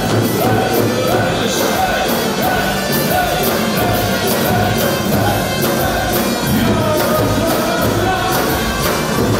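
Albanian wedding music: a melody with singing over a steady drum beat.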